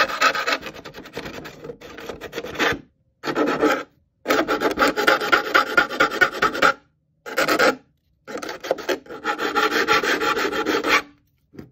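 Nail file rasping quickly back and forth along the cut plastic edge of a window opening in an RC truck body, smoothing the scored cut. It comes in four or five spells with brief pauses between them.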